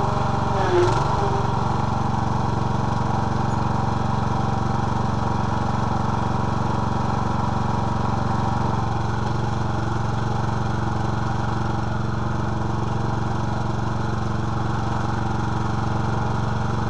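Riding lawn tractor's engine running steadily, its note dropping slightly about nine seconds in.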